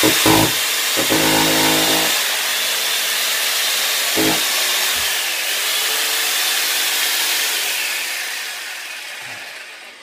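Corded power drill running in short bursts against a fridge-freezer door, with a steady loud hiss that fades away over the last couple of seconds.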